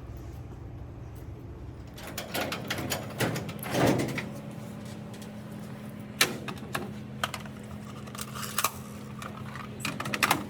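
Keys and a lock clicking and a latch clacking as a vending machine is unlocked and its door opened, a string of sharp clicks and knocks over a steady machine hum.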